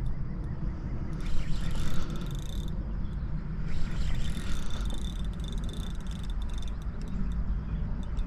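Spinning reel being cranked in short bursts while a hooked striped bass is brought in, each burst a rattling whir with a thin high whine, over a steady low wind rumble on the microphone.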